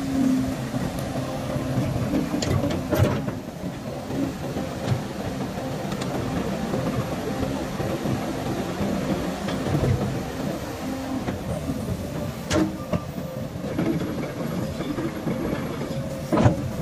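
Volvo EC240 crawler excavator's diesel engine running steadily while the boom and arm are worked. Three sharp metallic clanks: about three seconds in, near two-thirds of the way, and near the end.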